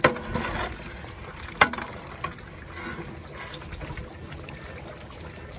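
A long metal ladle stirring a large pot of simmering mutton and gravy, the thick liquid sloshing, with sharp clanks of the ladle against the pot at the start and about a second and a half in.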